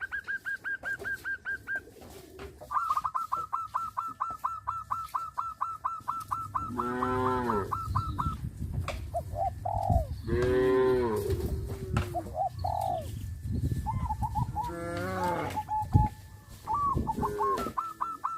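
Cattle mooing, long calls about 7 seconds in, again around 10 seconds and near 15 seconds, over a bird's fast, evenly repeated high call. A single sharp knock comes about 16 seconds in.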